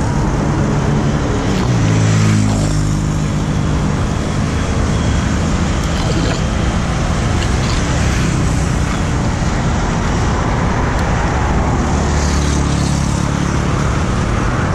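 Road traffic passing close by: trucks, cars and motorbikes, with an engine's pitch falling as one vehicle goes past about two seconds in.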